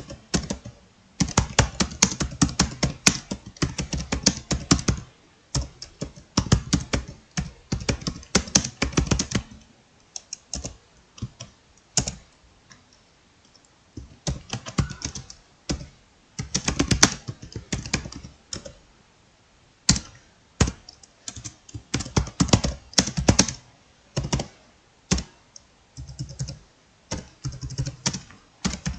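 Fast typing on a computer keyboard: quick runs of key clicks in bursts, broken by short pauses and a few longer gaps.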